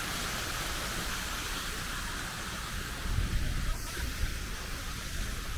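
Steady outdoor hiss, with wind buffeting the microphone in low gusts from about halfway through.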